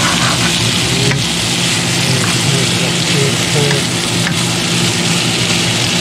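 Sliced onions and bell peppers sizzling in a hot wok as they are stir-fried with a spatula, a steady frying hiss with a couple of sharp clicks of the spatula against the pan.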